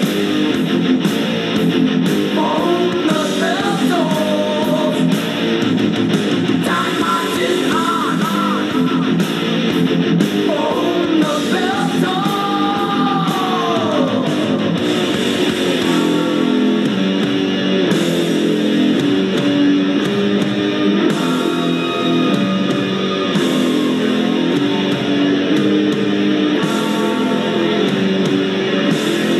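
Heavy rock music soundtrack: electric guitar and a singing voice, with sung lines mostly in the first half.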